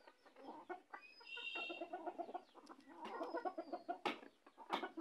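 Desi chickens clucking in a string of short, low calls, with a brief higher, thinner call about a second in. Two sharp clicks come near the end.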